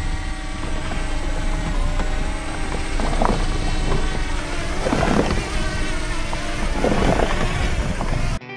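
Wind buffeting the microphone in gusts, swelling about three, five and seven seconds in, over the steady hum of a small quadcopter drone's propellers hovering close by. It cuts off near the end and guitar music takes over.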